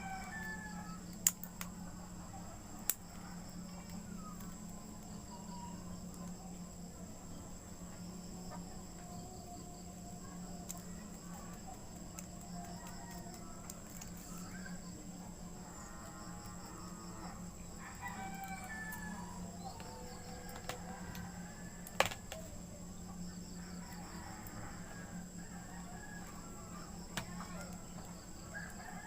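Chickens and a rooster calling on and off in the background over a steady low hum, with a few sharp clicks about one, three and twenty-two seconds in.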